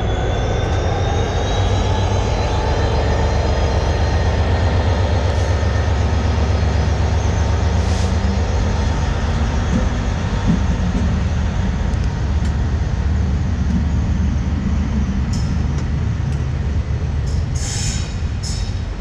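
GB Railfreight Class 66 diesel locomotive pulling away under power, its two-stroke V12 running with a deep steady drone, towing a Class 92 electric locomotive that rolls past on the rails. A whine rises in the first couple of seconds as the train gets moving, and a few sharp clicks from the wheels come later.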